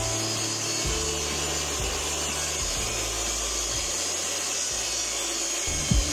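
Table saw running and cutting wood, a steady even noise, with background music underneath.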